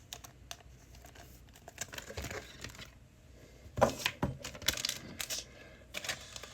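Trading cards and foil pack wrappers being handled: crinkling with sharp clicks and crackles, loudest in a cluster about four to five seconds in.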